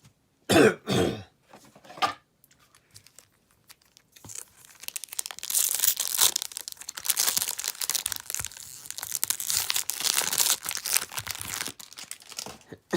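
Two quick coughs about half a second in, then a foil Pokémon booster pack being torn open and its wrapper crinkled for about eight seconds, starting about four seconds in.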